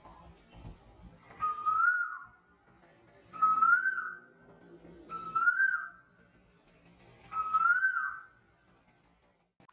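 A whistle-like tone repeated four times, about two seconds apart: each time a short held note slides up and then dips back down.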